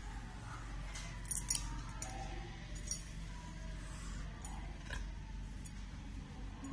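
Light metallic clinks and ticks, scattered and irregular with the loudest about a second and a half in, as hands trace a pencil around the rim of a steel plate held on paper, over a faint steady background hum.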